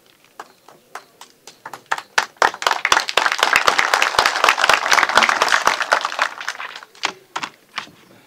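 Audience applauding. Scattered claps build into full applause over the first few seconds, hold, then thin out to a few last claps near the end.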